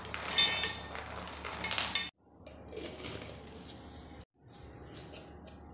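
Roasted cashews, almonds and makhana clattering and clinking against a steel plate and steel grinder jar as they are scooped in by hand. About two seconds in it cuts off abruptly, leaving a few quieter clinks as the steel jar is handled.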